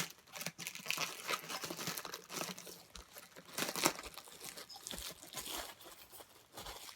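Plastic packaging crinkling and rustling in irregular bursts as merchandise is handled and unwrapped.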